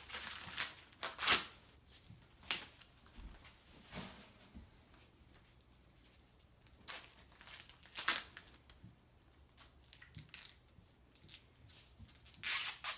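Dry corn husks being ripped and peeled back by hand from a large ear of corn: irregular tearing and rustling strokes, the loudest about a second in and another near the end.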